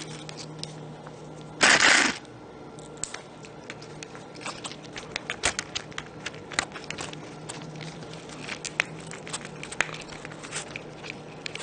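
Small scattered clicks and taps from hands handling the plastic and metal parts of an RC truck during reassembly, with one brief loud rustle nearly two seconds in.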